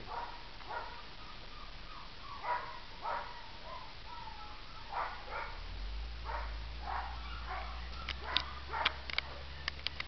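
A young red Doberman puppy whining in short, repeated cries, some drawn out on a steady pitch. A quick run of sharp clicks comes near the end.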